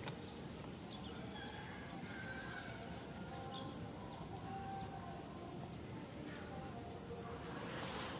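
Outdoor field ambience: a steady high insect drone with short chirps and a few longer calls over it. A rush of noise swells near the end.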